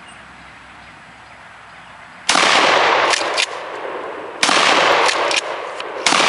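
Three shots from a 12-gauge Mossberg 535 pump-action shotgun, about two seconds apart, the first a little over two seconds in and the last near the end. Each blast is very loud, and its sound lingers for about a second before fading.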